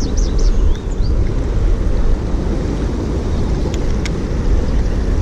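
Wind buffeting the microphone over the steady rush of a fast-flowing stream, mostly a low rumble. A few short high chirps come right at the start, and a couple of faint clicks come near the middle.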